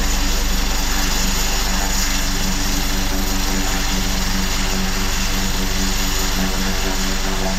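Leonardo AW189 twin-turboshaft helicopter climbing away after takeoff. The rotor beat is a fast, steady pulsing over the turbines' dense rushing noise and a steady hum, loud throughout and easing slightly toward the end.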